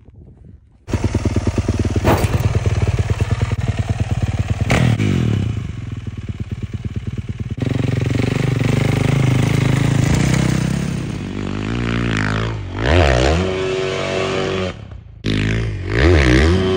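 Motocross dirt bike engine running: it cuts in suddenly about a second in with a fast, even pulsing, then revs up and down several times, rising and falling in pitch, as the bike climbs a steep sand hill under load.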